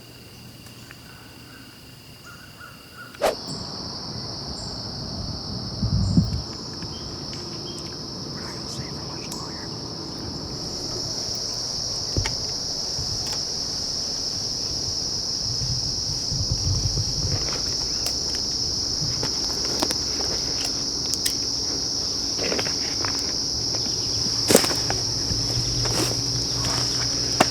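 Steady high-pitched insect chorus, an even drone that gets louder about three seconds in, with scattered sharp clicks and a few low thumps from handling close by.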